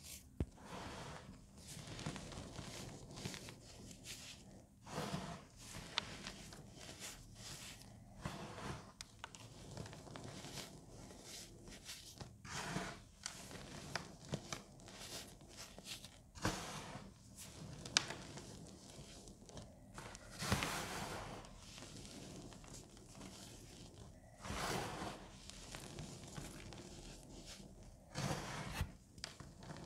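Baking soda powder squeezed and crumbled between bare fingers: soft, irregular crunching in bursts, with a few sharp snaps.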